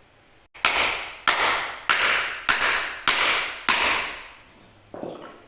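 Hammer driving a steel pivot pin down through the chassis's steering plates: six hard metal-on-metal blows about 0.6 s apart, each ringing briefly, then a lighter knock near the end.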